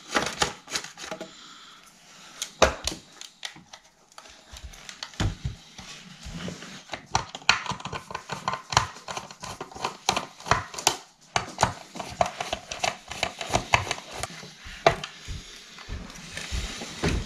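Screwdriver turning cross-head screws out of a VW T4 door mirror housing, with many irregular clicks, taps and plastic knocks as the screwdriver and housing parts are handled.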